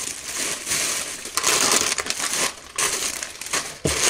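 Plastic zip-lock bags crinkling and rustling as a hand rummages through them in a plastic storage box, with a short knock near the end.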